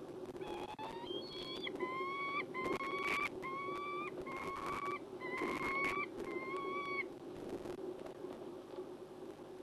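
Female peregrine falcon wailing: a series of about eight drawn-out calls, each about half a second long and rising slightly in pitch, stopping about seven seconds in.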